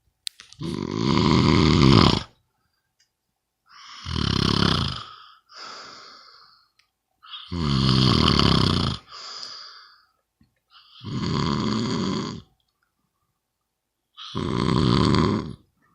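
A sleeper snoring loudly and rhythmically: five long rattling snores on the in-breath, about one every three and a half seconds, some followed by a softer breath out.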